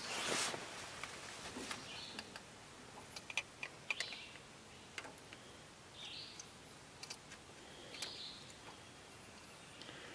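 Scattered small clicks and taps of pliers and metal parts as a pin is worked out of the throttle linkage at an International 240 tractor's carburetor, with a brief rustle at the start. A few short bird chirps sound in the background.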